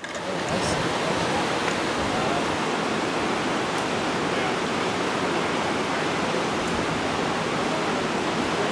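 Whitewater rapids on the Deschutes River rushing steadily.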